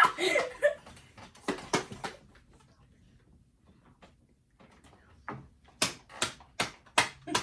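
Sharp knocks of a hard plastic toy bottle being struck to smash it open: a couple about a second and a half in, a quiet pause, then a quicker run of about two knocks a second near the end.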